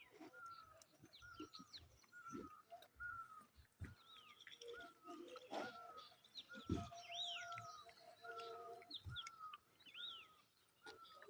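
Faint birds chirping: one bird repeats a short note over and over at an even pace while others give higher arching chirps. A few soft knocks come in between.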